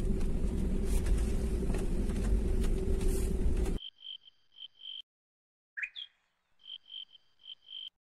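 Insects chirping in short, repeated high-pitched pulses over a steady low rumbling noise. The rumble cuts off suddenly a little before halfway, leaving the insect chirps alone with gaps of silence between them, and one short rising call a little after halfway.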